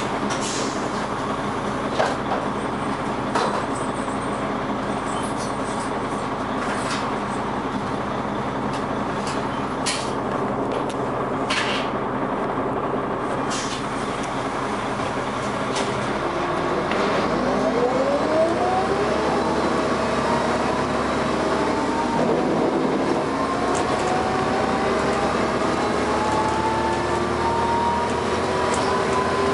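Dennis Arrow double-decker bus running, a steady drone with sharp rattles and clicks. About halfway through it pulls away: a whine from its ZF automatic gearbox rises in pitch, drops at a gear change, then rises again as the bus accelerates.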